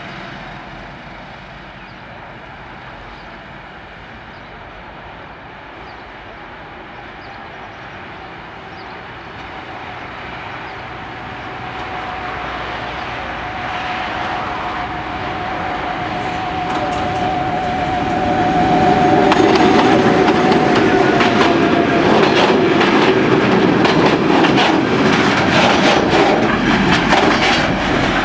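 MÁV class 628 (Soviet-built M62) locomotive's two-stroke V12 diesel running, growing steadily louder as it approaches, with a steady whine held for several seconds. From about two-thirds in, loaded freight wagons roll past, their wheels clattering over the rail joints.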